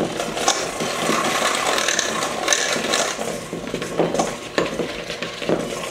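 Electric hand mixer running on low, its beaters churning powdered sugar and butter frosting in a stainless steel bowl, with a few sharp knocks as the beaters hit the side of the bowl.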